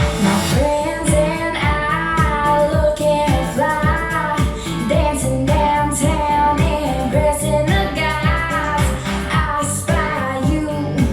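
Pop song with a female vocal and a steady kick-drum beat, about two hits a second, played back through a pair of Bose S1 Pro speakers with a single Bose B1 bass module taking the bass below 100 Hz.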